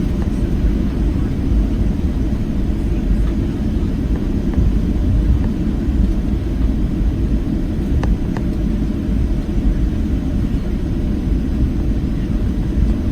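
Steady low rumble of a Boeing 737-700's engines and airflow, heard inside the passenger cabin.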